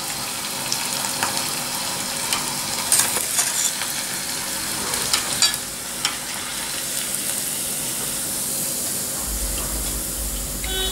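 Grated-potato basket deep-frying in hot oil in a kadai: a steady sizzle, with a few short clinks of a metal spoon against the pan as the basket is turned and lifted out.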